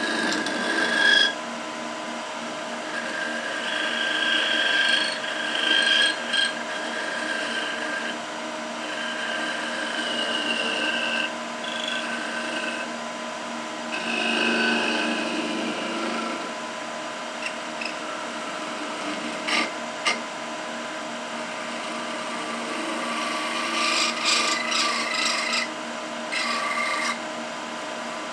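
Wood lathe running with a hand-held turning tool cutting a small softwood spindle, the cutting and scraping coming and going in passes of a few seconds over the lathe's steady motor hum.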